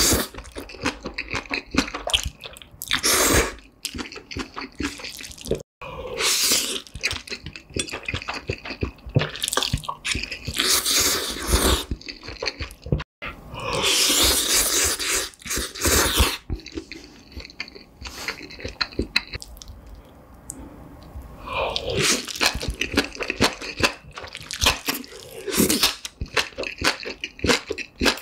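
Close-miked eating sounds: black bean sauce noodles slurped in several long pulls, between wet, sticky chewing. Green onion kimchi is crunched near the end.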